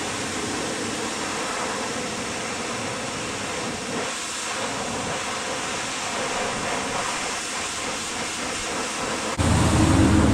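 Steady hiss of a pressure washer spraying water onto a hay baler, with a faint machine hum under it. About nine seconds in it cuts off abruptly, and a louder, low engine drone takes over.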